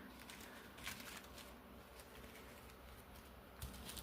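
Near silence with a few faint, brief rustles of handling, about a second in and again near the end.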